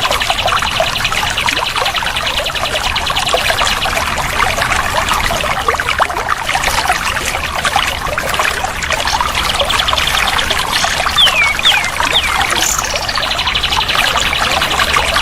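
Water trickling and pouring steadily, with a kapas tembak bird singing over it: fast rattling trills at the start and again from about two-thirds of the way in, and a few quick whistled notes just before the end.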